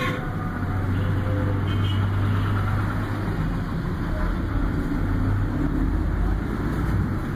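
A sharp click, then a steady low rumbling hum.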